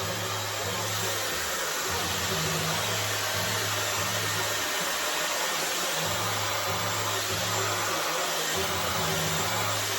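Dyson hair dryer running steadily, a constant rushing blow of air.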